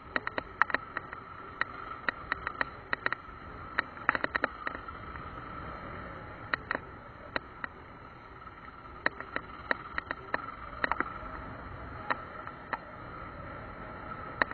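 Single-cylinder dual-sport motorcycle running steadily at low speed, with many sharp, irregular clicks and rattles as it jolts over rough grassy ground. The clicks thin out near the end, as it gets back onto smooth pavement.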